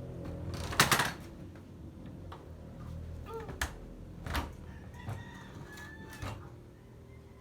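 Sharp knocks and clanks of hand tools working on a motorcycle's rear shock mount. The loudest is a double knock about a second in, followed by three single ones spaced a second or two apart.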